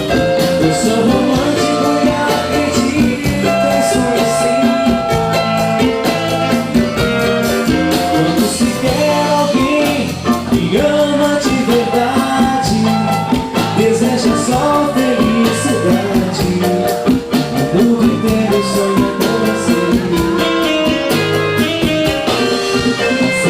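Live band music with a steady drum beat and several instruments playing held melody notes.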